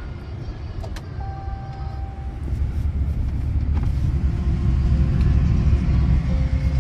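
Long train passing, a steady low rumble that swells a little after about two seconds, with a brief steady squeal about a second in.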